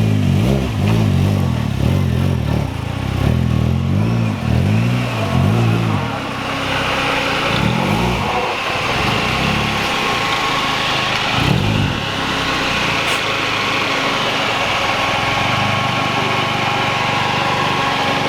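Engine of a turbocharged Mazdaspeed Protege5 with a straight-pipe exhaust being revved in a quick series of throttle blips for about six seconds, then two more single revs, then running at a steadier note.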